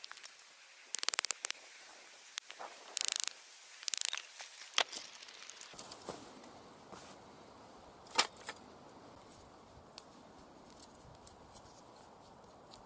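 Cold Steel SRK knife blade shaving wood: a few short scraping strokes in the first half, then a few sharp isolated clicks.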